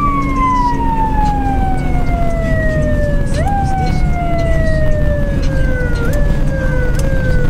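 Ambulance siren in a slow wail whose pitch keeps sliding down. It jumps up a little about a third of the way in and again near the end, then sinks again each time. A steady low road and engine rumble from the moving vehicle runs underneath.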